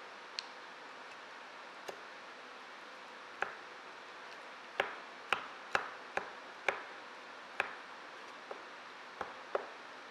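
Wooden spatula knocking and scraping against a ceramic baking dish while mashing brown sugar into softened plant-based butter: about a dozen irregular light taps, most closely bunched in the middle, over a steady hiss.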